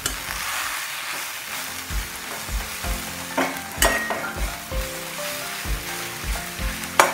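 Gongura (sorrel) leaves sizzling as they fry down in a kadai and are stirred, with a few sharp clinks against the pan. Soft background music with a steady beat plays underneath.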